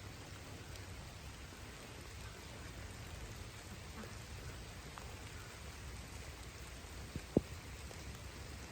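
Steady pattering of water dripping and falling from ice-coated trees and roofs as the ice melts, with a single sharp knock about seven seconds in.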